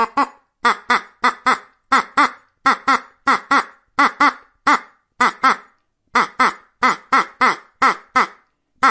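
A duck quacking over and over in quick calls, mostly in twos and threes, with a brief pause about two-thirds of the way through.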